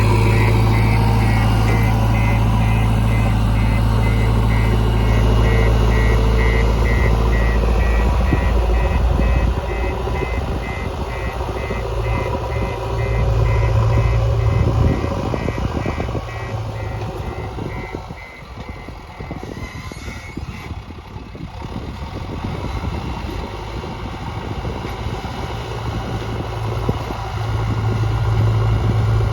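JCB 3DX backhoe loader's diesel engine running under varying load while the machine works, with its reversing alarm beeping steadily until about two-thirds of the way through.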